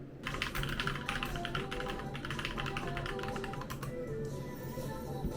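Rapid typing on a computer keyboard over background music; the typing stops about four seconds in and the music carries on.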